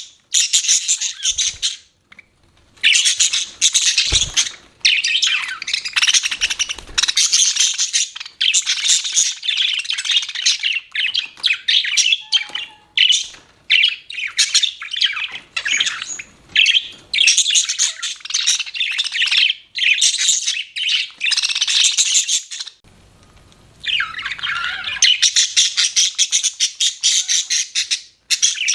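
Budgerigars chirping and chattering in a fast, busy warble with harsher squawky notes, in stretches of a few seconds broken by short pauses.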